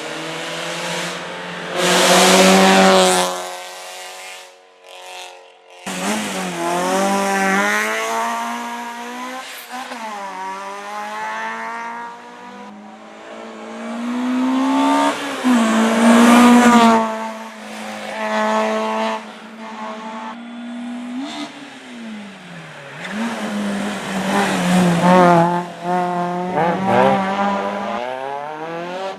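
Hill-climb race car engine driven hard, revs climbing and dropping again and again with gear changes and lifts, loudest about 2 seconds in, around the middle and near the end, with a short lull early on.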